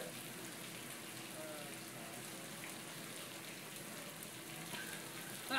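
Steady hiss of water running into a large water-park tipping bucket as it fills, before it tips.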